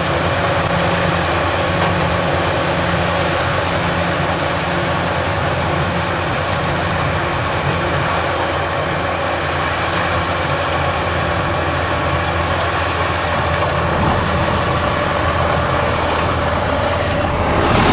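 Kubota DC-105X combine harvester running steadily while harvesting rice: a continuous engine hum with the rushing of its threshing and straw discharge.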